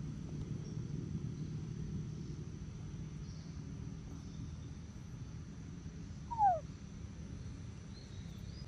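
A single short animal call sliding down in pitch about six seconds in, the loudest thing heard, over a steady low rumble; faint high bird chirps come near the end.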